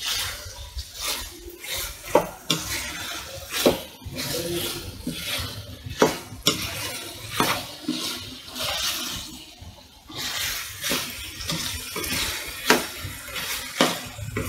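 A spatula stirring and scraping liver pieces in a ceramic-coated frying pan, knocking against the pan about once a second, over a steady sizzle of the liver frying in oil.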